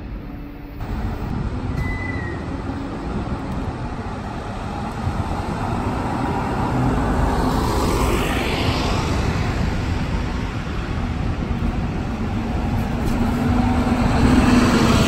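Town traffic around a bus station, with a city bus driving past close by near the end; its engine tone grows to the loudest sound.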